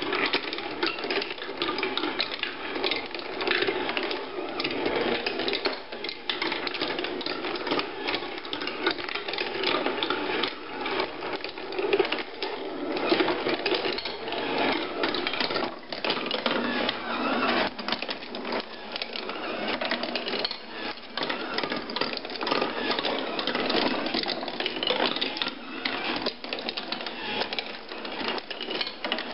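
Wooden marble machine running: marbles rolling and clattering continuously along wooden tracks, over the steady rattle of its chain lift.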